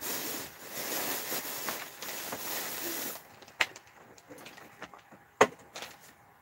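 Rustling noise, then a few knocks on a wooden bunk bed as a child climbs onto it, two of them sharp and loud.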